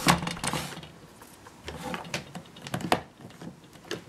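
Small plastic candy wrappers crinkling and clicking as fingers rummage through them in a plastic egg shell, in several short bursts with the loudest at the start.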